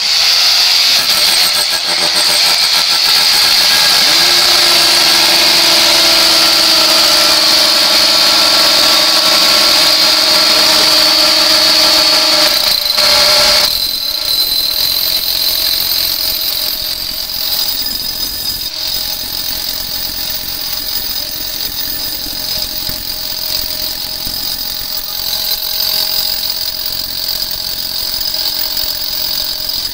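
Several Hitachi power tools running at once: the CS40Y electric chainsaw cutting a log, cordless drills boring into wooden rounds, and a rotary hammer drilling concrete. Together they make a steady high whine that eases off a little about halfway through.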